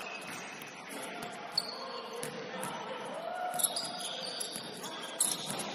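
Basketball being dribbled on a hardwood gym floor, with sharp bounces and high squeaks of sneakers on the court during play.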